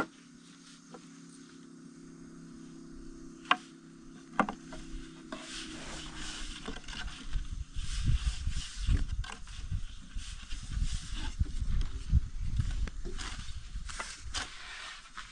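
Long thin wooden rolling pins rolling and knocking on flatbread dough and low wooden boards, with a few sharp knocks and then a run of irregular rubbing and dull thumps that grows louder. A low steady hum sounds underneath in the first half and fades out.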